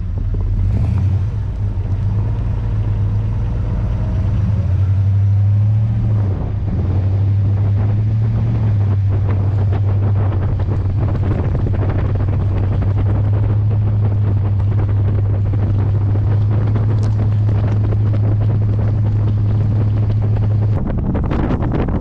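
Chevrolet Suburban driving through fresh snow, heard from low on the vehicle's side: a steady low drone from the engine and tyres, with snow spraying off the tyres and wind on the microphone.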